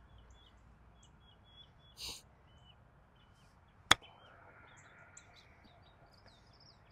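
A 54-degree golf wedge striking the ball with one sharp click about four seconds in, on a pitch shot toward the green. A brief soft swish comes about two seconds in, and birds chirp faintly throughout.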